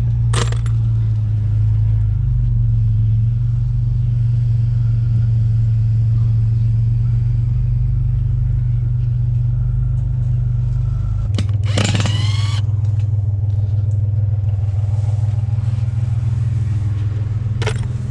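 Truck engine and road noise heard from inside the cab, a steady low rumble that shifts about eleven seconds in. A short, high squeak comes just after.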